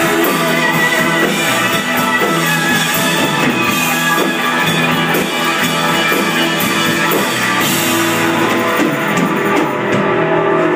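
Live rock band playing: electric guitars and keyboards with a steady loud full-band sound, recorded from within the audience.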